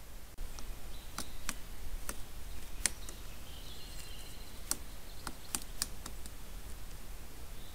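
Black woodpecker pecking at a tree trunk: about eight sharp, irregular knocks spread over several seconds.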